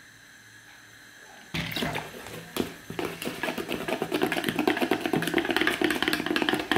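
Wire whisk beating egg-white and oat pancake batter in a plastic bowl: a fast, continuous run of clicks and splashing that starts about a second and a half in.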